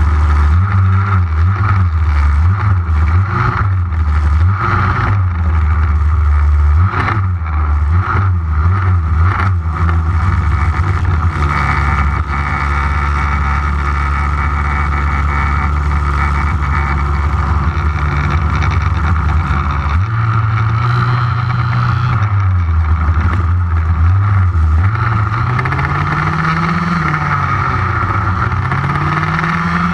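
HPI Baja 5B 1/5-scale RC buggy's two-stroke petrol engine, heard close up from its on-board camera, revving up and down again and again as the throttle is blipped and released. A few sharp knocks come about seven to ten seconds in, and near the end the revs rise and fall in slower swells.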